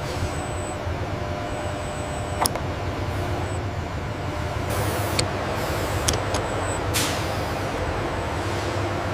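Industrial machinery running with a steady low hum, a sharp click about two and a half seconds in, and short hissing bursts around the middle and again later.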